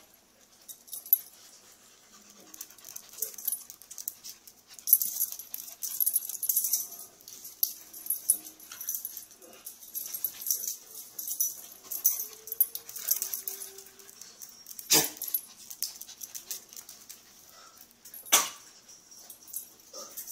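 Two small dogs scuffling in play on a rug: steady scratchy clicking and rustling from their paws and collars, a few faint whimpers, and two sharp knocks, about 15 and 18 seconds in.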